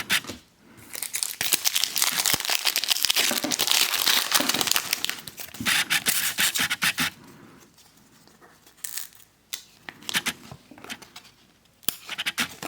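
A baseball card pack wrapper being torn open and crinkled for about six seconds, followed by quieter scattered clicks and rustles of the cards being handled.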